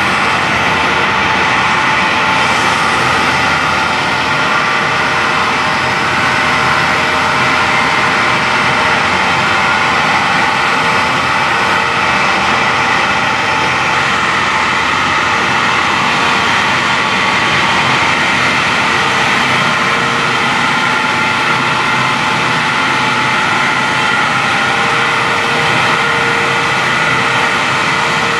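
Siphon-feed air spray gun hissing steadily as it sprays paint, over the constant drone of spray-booth machinery.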